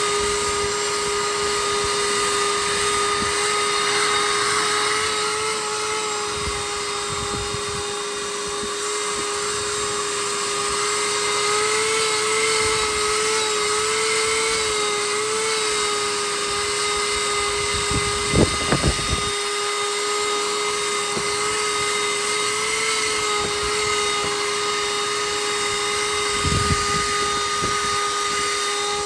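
Mini shop vac running with a steady high whine, its pitch wavering slightly now and then. A short clatter of knocks comes about two-thirds of the way through, and a single knock near the end.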